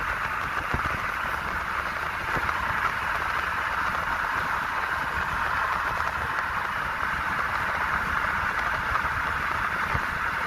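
Steady road and wind noise inside a moving car at highway speed, an even rushing hiss over a low rumble.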